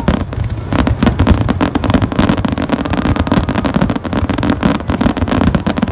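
Fireworks display: a dense, continuous barrage of rapid bangs and crackles, several bursts each second.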